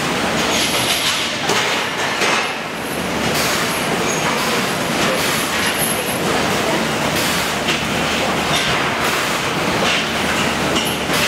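Loud factory machinery running in a fish-flake processing plant: a dense, steady clattering rattle with irregular clanks and brief high squeaks now and then.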